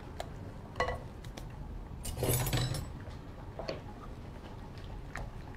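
A whisk clicking and scraping against a small saucepan as coconut cream and rice flour are whisked together, with scattered taps and a louder clatter about two seconds in.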